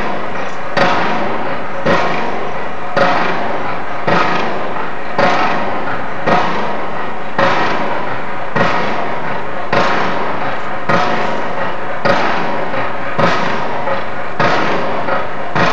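Loud, regular banging, about one blow every second, each ringing out before the next, over a steady background noise.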